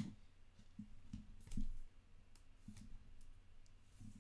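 Faint handling noise from a trading card and a clear plastic sleeve: a sharp click at the start, a short rustle about a second and a half in, then scattered light clicks.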